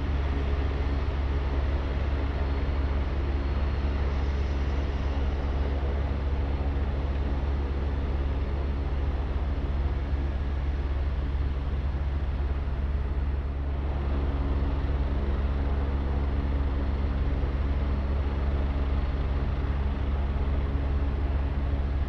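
Agusta A109 twin-turbine police helicopter running on the ground with its rotors turning: a steady turbine and rotor drone with a strong low rumble and a few constant tones, no spool-up or lift-off.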